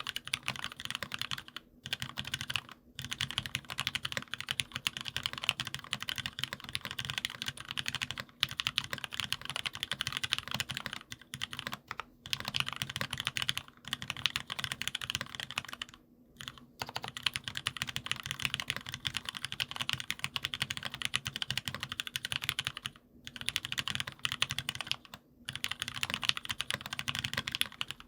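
Continuous fast typing on a gasket-mounted aluminium mechanical keyboard with lubed Gateron Merlot tactile switches, 70 g springs and Tulip keycaps: dense key clicks with short pauses here and there.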